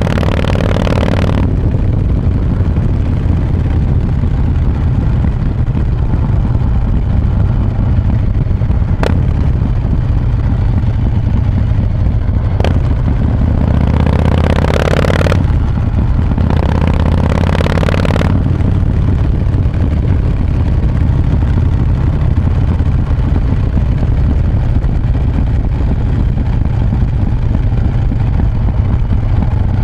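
Harley-Davidson Breakout's Milwaukee-Eight V-twin, fitted with an S&S 475 cam and a Vance & Hines exhaust with quiet baffles, running steadily with a deep low throb. Two short rushes of hissing noise come about halfway through.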